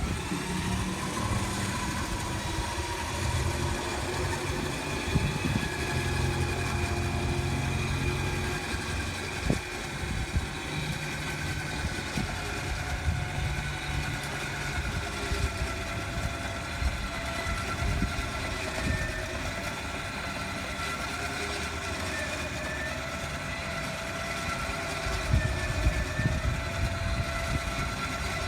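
A motor running steadily, with a low hum and a faint whine that drifts slowly in pitch.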